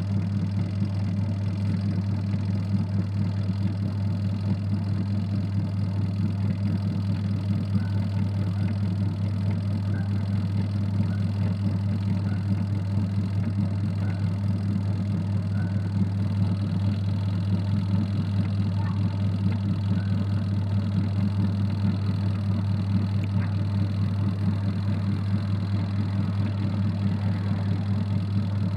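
Adler AD8051 mini washing machine's motor running with a steady, unbroken hum.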